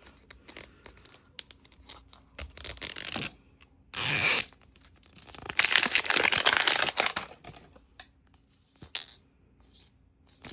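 Plastic wrapping on a toy capsule being torn open and crinkled: a short rip about four seconds in and a longer one around six seconds, between light clicks and taps of plastic being handled.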